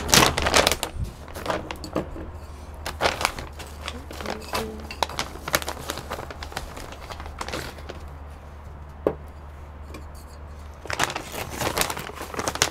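A bag of cactus potting mix crinkling and rustling as it is handled and soil is tipped into a small terracotta pot. The irregular rustles and light knocks are busiest near the end.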